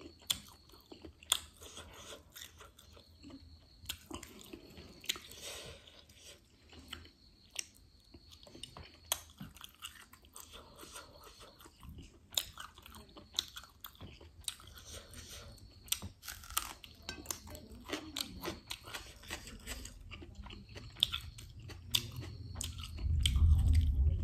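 Close-up chewing of spicy noodles and sausage, with many sharp clicks of a fork against the plate. Near the end, a loud low rumble of breath puffed against the microphone.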